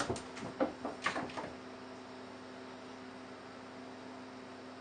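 A quick flurry of light clicks and scuffs in the first second and a half, then only a steady low electrical hum.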